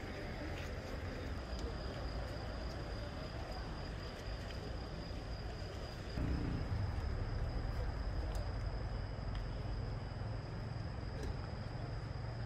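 Outdoor night ambience: crickets trilling steadily at a high pitch over a low background rumble, which gets louder about six seconds in.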